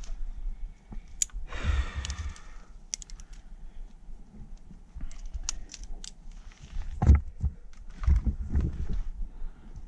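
Scattered light clicks and clinks of climbing hardware (carabiners and protection racked on a harness), with a short rub about two seconds in and a few dull thumps near the end as the climber moves on the rock.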